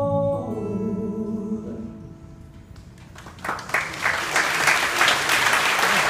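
The song's last sung note and its accompaniment are held and fade away over the first two seconds. About three seconds in, the audience breaks into applause that continues to the end.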